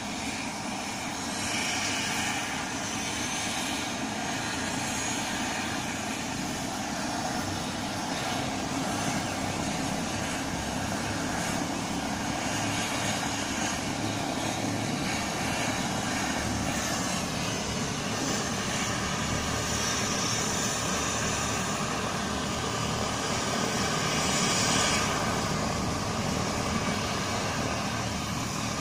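Air-rescue helicopter running steadily on the helipad, its turbines and rotor heard from a distance. A car passes near the end.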